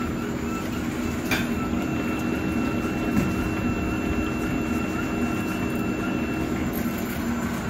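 Welly S-3 grain-puffing extruder running at start-up, its motor and feed screw turning with a steady mechanical hum. A single click comes about one and a half seconds in, followed by a faint high whine that stops shortly before the end.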